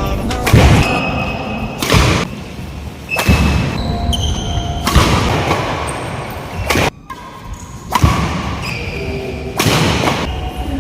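Badminton rally: racket strings striking the shuttlecock about seven times, one sharp hit every one to two seconds, with short high squeaks between hits.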